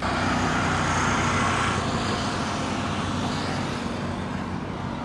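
Toy CNG auto-rickshaw running: a steady mechanical whirr with a low hum, starting abruptly and easing off slightly toward the end.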